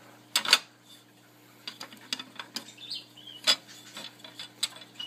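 Sharp clicks and clacks from handling an 8-inch floppy disk drive and working its door: a loud double click about half a second in, lighter scattered clicks after, and another sharp click about three and a half seconds in.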